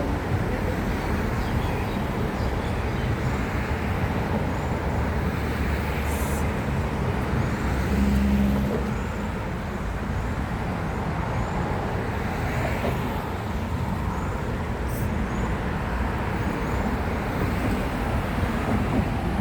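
Steady road traffic noise, a continuous rumble with one louder swell from a passing vehicle about eight seconds in.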